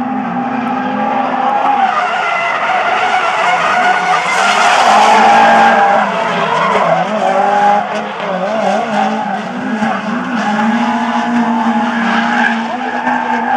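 Two drift cars in tandem, their engines revving hard and wavering with the throttle while the spinning rear tyres squeal and skid sideways through the corner. Loudest about four to six seconds in, as the pair passes closest.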